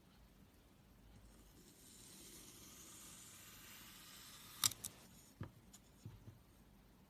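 Slime being handled: a soft hiss swells over the first few seconds, then two sharp pops about four and a half seconds in, followed by a few softer clicks.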